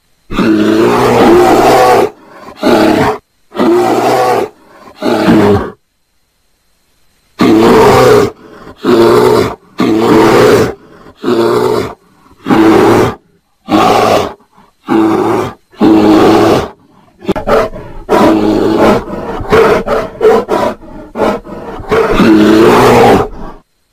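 A bear's loud, harsh roars, repeated as a string of calls from about half a second to two seconds long with short breaks between them. There is a silent pause of about a second and a half near the quarter mark, and the calls come shorter and quicker past the middle.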